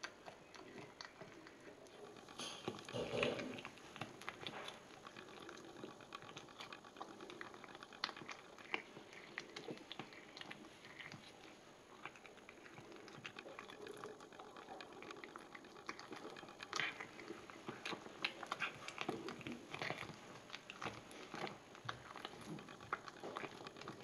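A domestic cat chewing and biting into a mouse, with many small irregular crunches and clicks. The loudest bites come about three seconds in and again around seventeen seconds.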